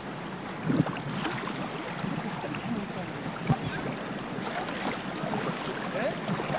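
Steady wind noise on the microphone, with a couple of brief knocks as a cut-down, bent spade is driven into wet tidal mud.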